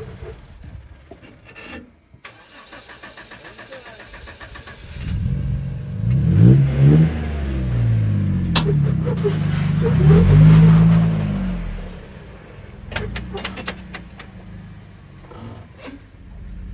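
Rock-crawling Jeep's engine revving hard under load, its pitch climbing and falling several times through the middle, after a rapid even clatter early on. A few sharp knocks follow near the end.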